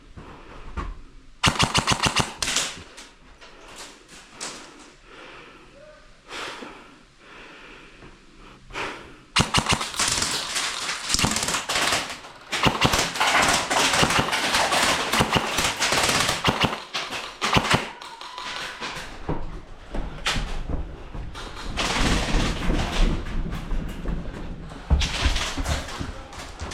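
Airsoft rifle firing a rapid full-auto burst of sharp clicking shots for about a second and a half. From about nine seconds in comes a long, loud stretch of dense noise with more clicks.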